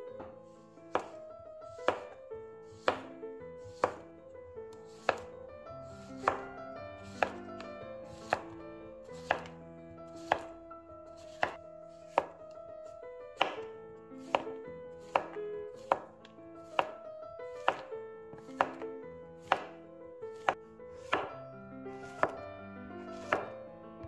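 Chef's knife slicing peeled zucchini into rounds on a wooden cutting board, each cut ending in a sharp knock on the board, about one cut a second and a little quicker in the second half. Soft instrumental music plays underneath.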